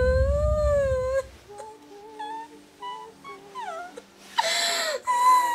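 A woman crying theatrically: one long high wail, then a string of short whimpering sobs, and a breathy sobbing wail near the end.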